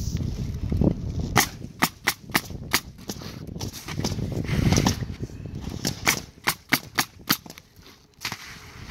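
Pneumatic coil roofing nailer firing nails through asphalt shingles, a sharp crack with each nail. The nails come in two runs, the second quicker at about three a second.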